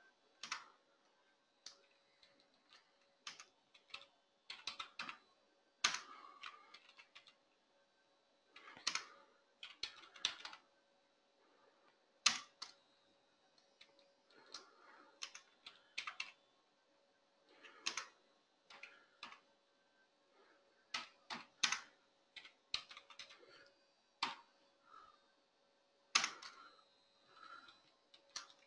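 Computer keyboard typing: irregular keystrokes in short clusters with pauses between them, faint, over a faint steady hum.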